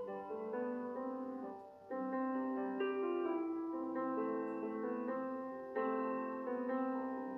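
Background piano music: held chords and a slow melody, with new chords struck about two seconds in and again near six seconds.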